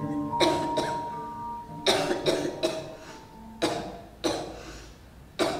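A performer coughing in character, in several short fits of about seven coughs with an echo after each. Soft held mallet-instrument notes fade out a little past midway.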